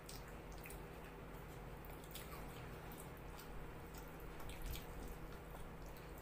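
Faint wet eating sounds: naan torn and dipped by hand into rajma curry, with many small sticky clicks, over a steady low hum.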